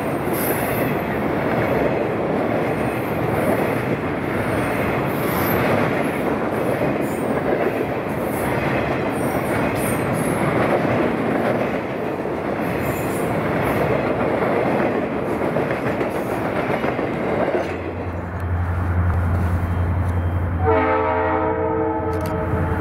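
Freight cars rolling past on the rails with a dense, rumbling clatter and flickers of wheel squeal. Near the end a locomotive's deep, steady engine drone comes in, and about three seconds later its air horn starts blowing and holds.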